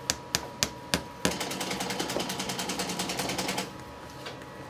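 A few sharp taps about a third of a second apart, then a fast, even mechanical clicking for about two seconds that stops suddenly.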